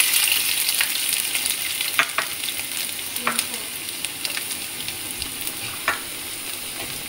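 Chopped garlic and dried red chillies sizzling in hot mustard oil, with scattered sharp pops. The sizzle is loudest at the start, just after the garlic goes in, and slowly eases off.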